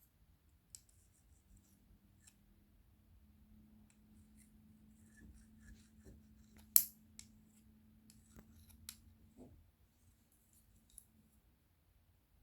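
Light, scattered clicks and taps of a plastic cake box and its lid being handled for ASMR, with one sharp click about seven seconds in and a smaller one about two seconds later.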